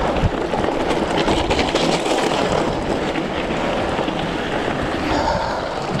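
Steady rush of wind on the microphone while a gravel bike rolls over a rough, rocky gravel trail, with a scatter of small crunches from the tyres on stones.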